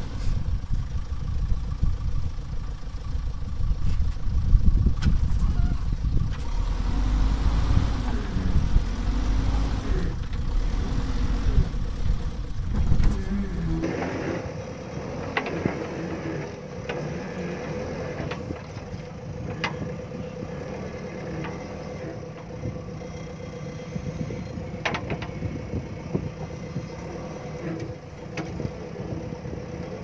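JCB 3DX backhoe loader's diesel engine running as the machine works on a gravel mound, its pitch rising and falling with the load. About halfway through it turns quieter and steadier, with a few sharp knocks.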